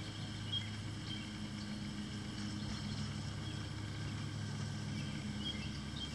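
A steady low hum with a few faint, brief high chirps now and then.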